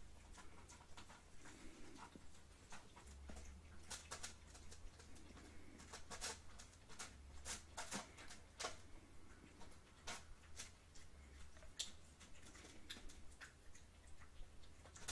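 Quiet, irregular soft clicks and ticks, scattered unevenly, over a steady low hum.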